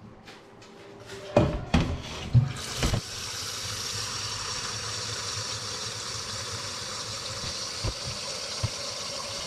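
Kitchen tap running steadily into a large stainless-steel stockpot, filling it with water. It starts about two and a half seconds in, after a few knocks as the pot is handled in the sink.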